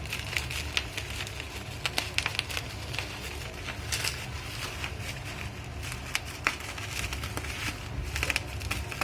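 Bubble wrap and plastic packaging crinkling and crackling as it is handled and unwrapped, with scattered sharp clicks, over a steady low hum.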